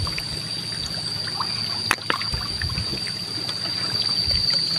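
Water trickling and dribbling over wet rocks, with a few light handling clicks, one sharper about two seconds in. A steady high-pitched tone runs underneath.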